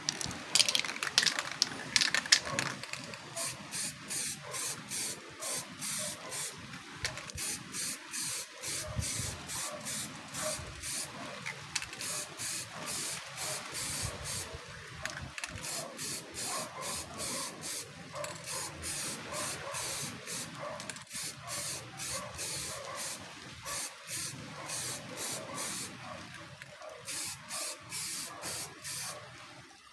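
Aerosol spray paint can, shaken with its mixing ball rattling for the first couple of seconds, then sprayed in short hissing bursts of about two a second, with a brief pause near the end.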